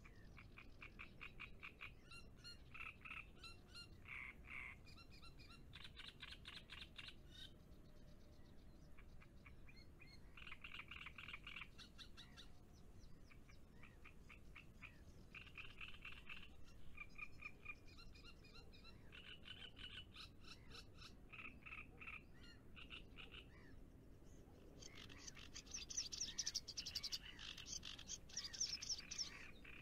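Frogs calling faintly: repeated bouts of rapid, pulsed croaks about a second long, with a higher-pitched, louder run of calls near the end.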